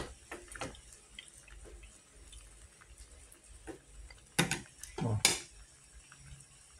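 Wooden chopsticks stirring noodles in an aluminium pot, with scattered light clicks and taps against the pot and two louder knocks about four and five seconds in.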